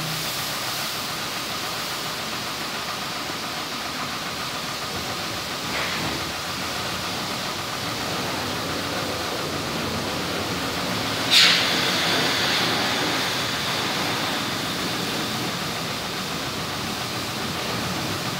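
High-pressure washer jet spraying a dirt bike, a steady hiss of water; about eleven seconds in it briefly turns louder and sharper.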